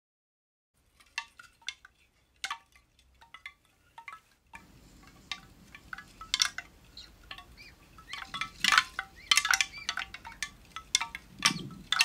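Wind chimes tinkling in irregular, ringing strikes, sparse at first and then thicker and louder from about halfway in.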